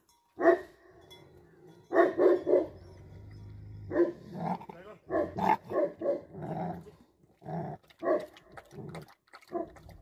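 Dog barking: one bark, then a quick run of three, then a string of barks, with a few spaced barks near the end.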